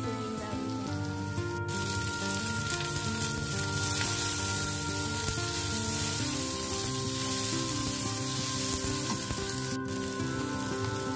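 Sliced shallots, garlic and bird's eye chilies sizzling in hot oil in a non-stick wok as they are stir-fried with a spatula; the sizzle grows louder about two seconds in. Background music with held notes plays underneath.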